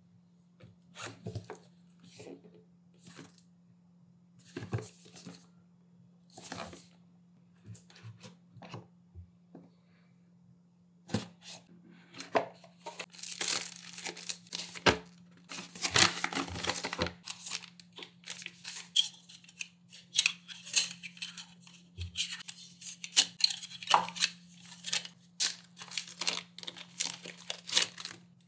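Tearing and rustling handling noises in short, irregular bursts, with a longer, denser stretch of tearing a little before the middle, over a faint steady low hum.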